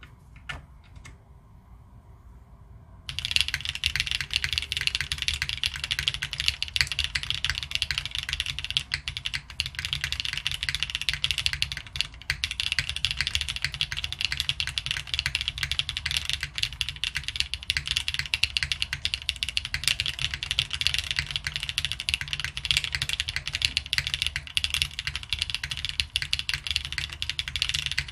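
Fast, continuous typing on a Fukuro custom mechanical keyboard with stock Leobog Standard Brown tactile switches, a polycarbonate plate in top mount and GMK keycaps. A few faint clicks come first, then dense steady typing starts about three seconds in, with a brief lull near the middle.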